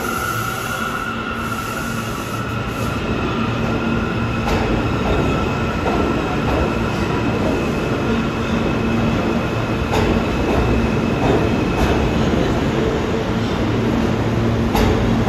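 New York City subway train running through the station, its wheels squealing in a steady high pitch that fades out near the end, over a continuous rumble with a few sharp clicks from the rail joints.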